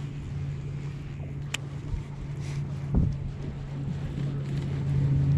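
Steady low hum of a bass boat's motor running, with wind on the microphone. A sharp click about a second and a half in and a dull knock about three seconds in.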